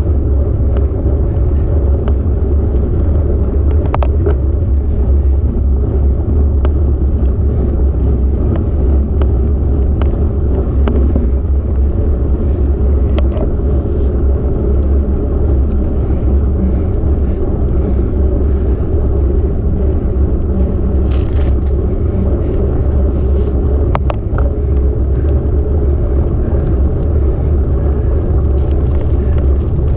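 Loud, steady low rumble of wind buffeting the microphone and tyre noise on asphalt while travelling along the road, with a few faint clicks.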